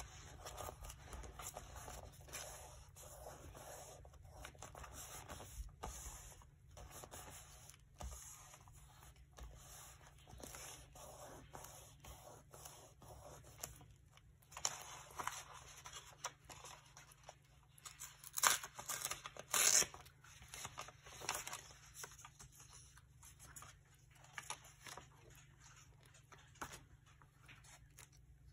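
Paper crafting sounds: paper being handled, torn and rubbed down while pages are glued, a run of short scratchy rustles and scrapes with a few louder bursts a little past the middle.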